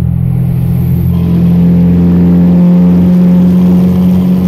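Dodge Ram's Cummins 5.9 L turbo diesel pulling steadily at cruise, heard from inside the cab. The engine note grows louder and fuller about a second in as the truck drives into a road tunnel, then holds steady without a change in pitch.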